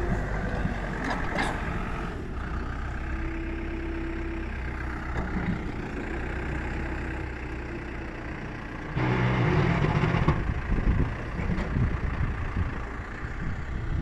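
Backhoe's diesel engine running steadily, with a louder, noisier stretch of about a second about nine seconds in.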